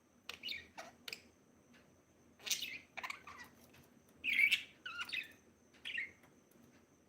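Budgerigar chirping in short, irregular calls, the loudest a little past halfway.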